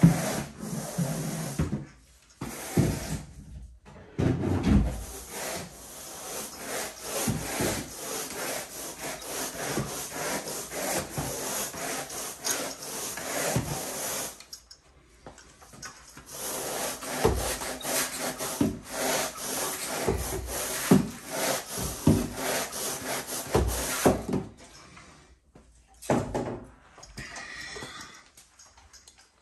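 Carpet grooming rake dragged back and forth through freshly cleaned carpet pile in quick, repeated rasping strokes. The strokes come in two long runs with a short break between them, and thin out near the end.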